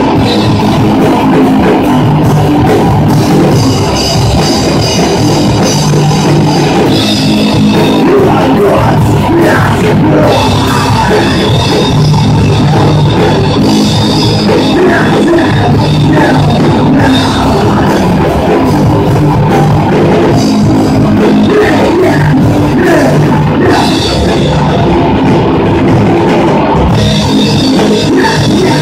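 Live rock band playing loud, heavy music on electric guitars and a drum kit.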